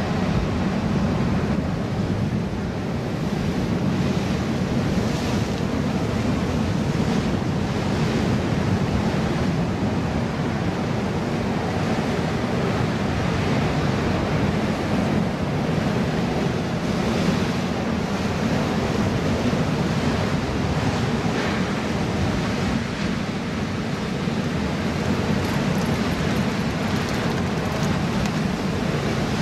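Ocean surf breaking and washing over a boulder rock wall, a steady rush of white water, with wind buffeting the microphone.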